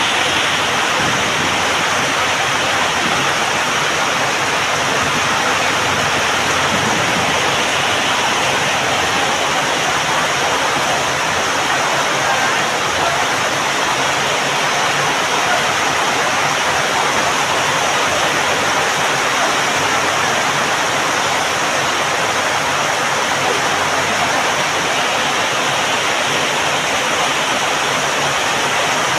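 Heavy rain falling steadily, a constant even hiss with no break or change in level.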